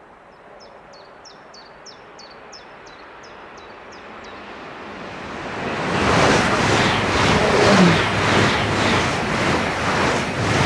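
ICE high-speed electric train passing at speed. Its rushing noise swells from about five seconds in and stays loud, with a regular pulsing about twice a second as the carriages go by. Before it arrives, a bird sings a quick run of about ten falling notes.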